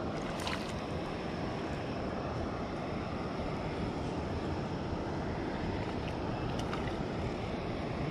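Steady rushing noise of wind on the microphone and flowing creek water, heaviest in the low end, with a faint click about half a second in and another near the seventh second.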